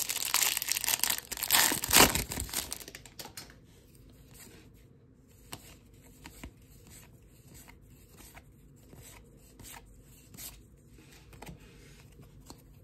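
Plastic wrapper of a Topps baseball card pack crinkling and tearing open, loudest about two seconds in. After about three seconds it gives way to faint clicks and slides of the cards being flipped through by hand.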